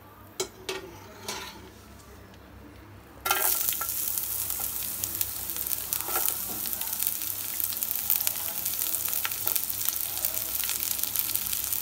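Sliced onions dropped into hot oil in a kadai: after a few light clicks, a sudden loud sizzle starts about three seconds in and keeps crackling steadily as the onions fry.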